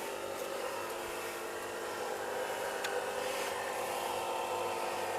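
Steady hum and hiss of a small motor running without letting up, an air compressor airing up tractor tires. A single faint click about three seconds in.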